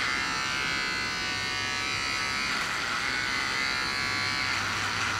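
Electric hair clipper buzzing steadily as it is run through the hair at the back of a man's head.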